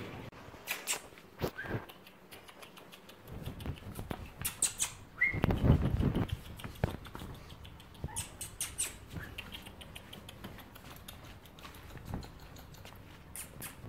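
Toy Pomeranian puppy moving about: light scattered ticks and scuffles, with a brief high squeak about five seconds in followed by a louder rustling scuffle.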